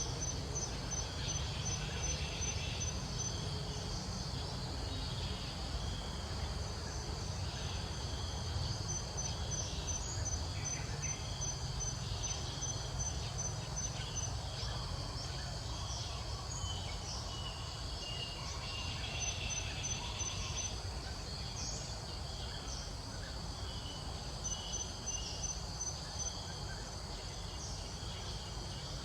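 Steady insect chorus, a high continuous trilling with a rapid pulse, over a low steady rumble, with scattered short chirps.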